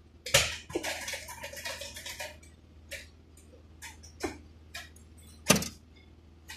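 A series of sharp clicks and knocks. A dense clattering stretch runs through the first two seconds, single knocks follow, and the loudest comes about five and a half seconds in, over a low steady hum.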